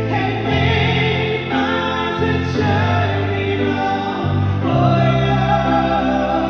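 A man and a woman singing a duet into microphones over sustained low accompaniment notes that change every second or so.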